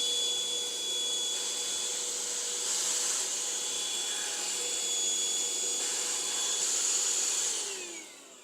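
EUREKA cordless stick vacuum with its crevice tool fitted, its motor running steadily with a high whine over rushing air, then switched off near the end and winding down in falling pitch.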